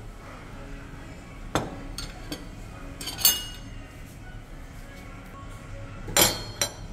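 Metal tableware clinking: a few sharp clinks of spoons and steel dishes, the loudest a little over three seconds in with a short ring after it, and two more close together near the end, over a low steady background hum.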